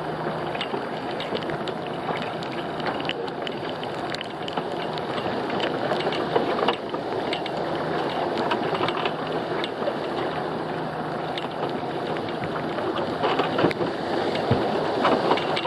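Small fishing boat's engine running steadily, with scattered knocks and clatter that are louder about seven seconds in and near the end.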